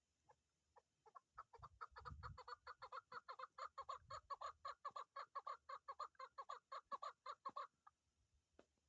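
Chukar partridge calling: a few single clucks, then a long fast run of repeated clucking notes that stops shortly before the end.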